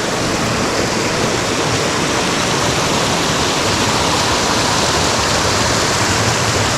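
Mountain stream near the headwaters of the Chikuma River, its water rushing loud and steady.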